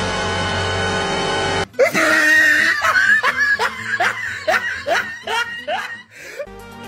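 A held musical tone cut off abruptly after about a second and a half, followed by a run of laughter, short rising bursts about two or three a second, fading near the end.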